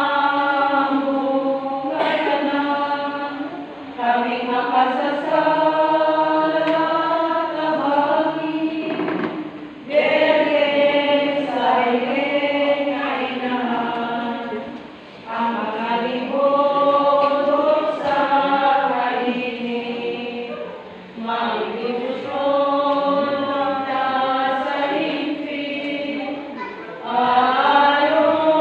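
Congregation of many voices chanting in unison, in slow held phrases of about five or six seconds with a short break between each.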